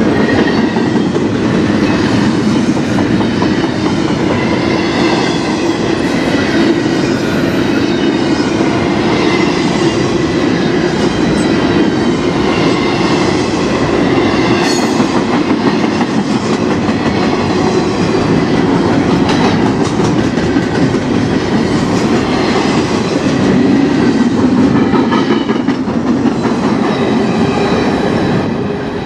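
Double-stack intermodal freight cars rolling past close by: a loud, steady rumble of steel wheels on rail, with faint high-pitched wheel squeal wavering above it. The sound drops a little near the end as the last car goes by.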